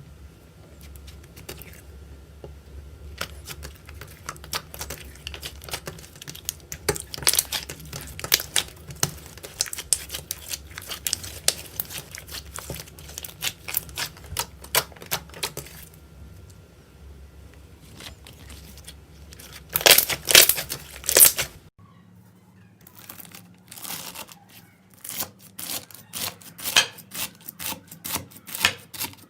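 Slime being squeezed, poked and stretched by hand, giving rapid crackling clicks and pops, with a louder run of crackles about two-thirds of the way in. After an abrupt change of background a little later, it carries on as sharper, more separate clicks.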